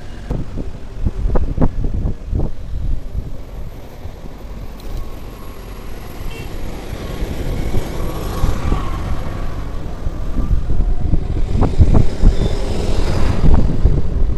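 Wind buffeting the microphone and tyre noise from an electric scooter riding downhill, with heavier gusts about a second in and again near the end.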